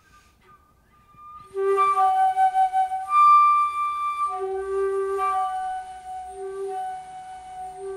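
Flute music: a slow melody of long held notes, faint at first and then loud from about a second and a half in.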